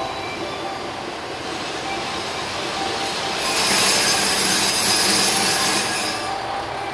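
Tango Explorer diesel express train rolling slowly alongside the platform with its engines running. About three and a half seconds in, a loud, high brake hiss and squeal sets in for about three seconds as the train draws to a stop, then eases off.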